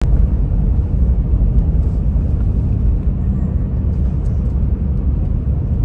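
A car driving at speed: steady low rumble of tyres on the road and the engine.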